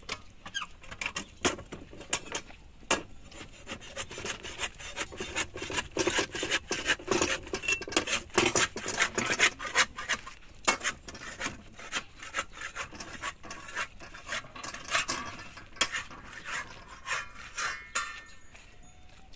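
Flat metal spatula scraping and clicking against an iron saj griddle in a quick, irregular run of strokes, busiest in the middle and thinning out toward the end.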